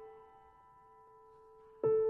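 Background piano music: a held note dies away until it is barely heard, and a new note is struck near the end.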